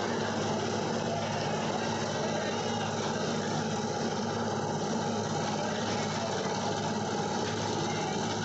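An engine running steadily at idle: a low, even hum that does not change.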